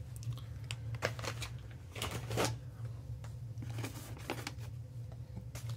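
Plastic bags crinkling, with light clicks and knocks, as bagged MGN linear rails are handled and lifted out of a foam packing tray.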